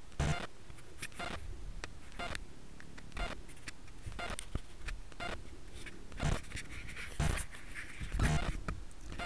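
Irregular rustling, rubbing and knocking of clothing and a hand against a body-worn action camera's microphone as the camera is jostled and tipped over.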